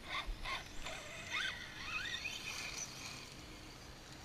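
Electric radio-controlled cars' motors whining as they are driven: a few short bursts of throttle in the first second, then two rising whines as a car accelerates, fairly faint.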